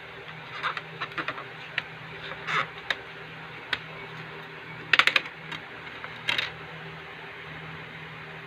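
Plastic clicks and brief rustles from a DVD case being handled and opened, over a steady electrical hum; the loudest snaps come about five seconds in.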